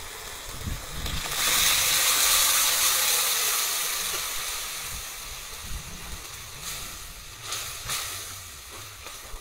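Cooked mutton curry poured into a kadhai of hot ghee and fried masala, hitting the hot fat with a sudden loud hiss and sizzle about a second in that slowly dies down. A few brief scrapes of a spatula stirring in the pan come near the end.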